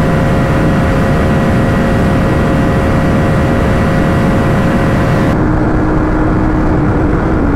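Motorcycle riding flat out at steady high revs, with heavy wind rush. The engine's tones hold level. About five seconds in, the higher whine and hiss drop away and a lower steady tone takes over.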